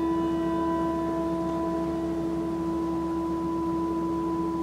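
A struck bell ringing on after its strike: one clear steady low tone with fainter higher tones above it, fading slowly.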